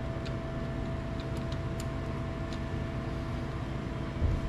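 A steady mechanical hum runs throughout, with a few faint light clicks in the first couple of seconds and a dull thump near the end.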